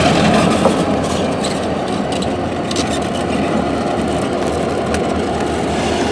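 Canadian National diesel locomotives, four units of EMD road switchers, running as they pull a freight train slowly past. It is a steady diesel drone.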